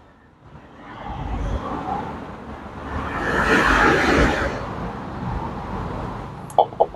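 A passing vehicle: a wash of road noise that swells to a peak about three to four seconds in and then fades, with a few light clicks near the end.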